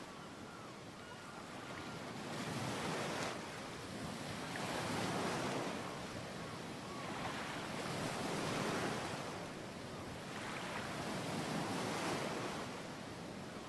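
Ocean surf: waves breaking and washing up a beach, swelling and falling back every few seconds.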